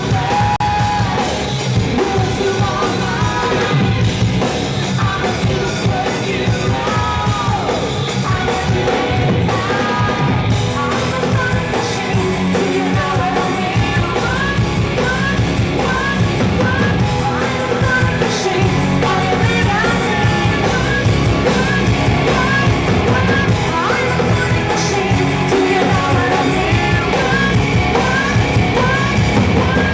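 Loud rock music with a singer, continuous, with short repeated swooping vocal notes through the second half.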